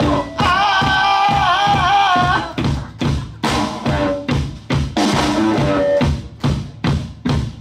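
Live rock band playing: a drum kit keeps a steady beat under electric guitars and bass, with a loud wavering high note for about two seconds near the start. Later the singer sings a short phrase as a demonstration for the audience to sing back.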